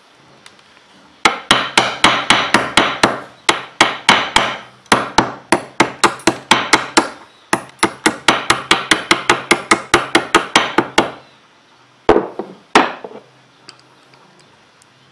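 Hammer striking a spark plug's ceramic insulator rested on a steel vise, about four sharp blows a second in runs with short breaks, then two separate blows near the end. The blows break up the ceramic to free the centre electrode.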